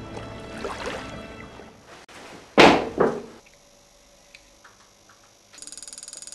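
Background music fades out about two seconds in. Two loud thuds follow half a second apart. Then there are a few faint clicks and a short run of fast ticking near the end.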